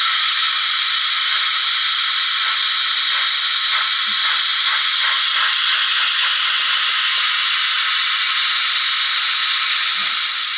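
Steam-hiss sound effect played through the small speaker of the HO-scale PLM 5AT model locomotive's ESU digital sound decoder: a loud, steady hiss, with a few faint ticks in the middle.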